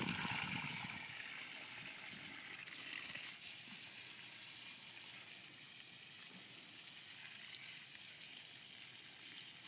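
Water from a garden hose spraying and splattering: a soft steady hiss, a little louder in about the first second, then faint and even.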